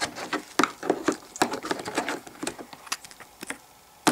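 Wet hands scrubbing a small plastic toy cup in soapy water: irregular taps, rubbing and little splashes, dying down near the end.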